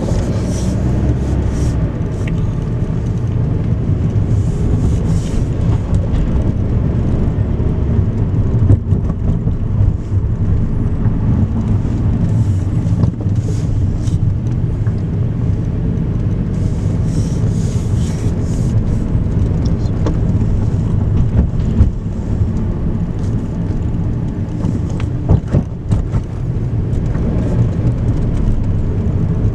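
Car driving slowly, heard from inside the cabin: a steady low engine and road rumble.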